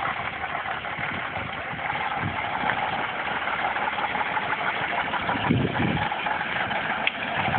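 Praga V3S truck's air-cooled diesel engine running under load as the truck crawls through deep mud, slowly growing louder.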